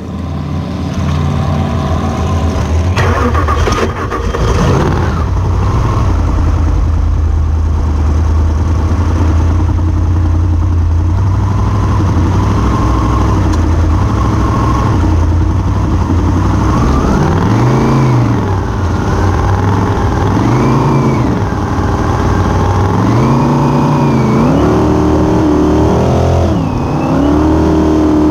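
Big-block Chevrolet V8 of a superstock race boat, heard onboard, running at low revs, then rising and falling in pitch several times from about halfway through. Near the end the engine holds steady at higher revs as the boat gathers speed.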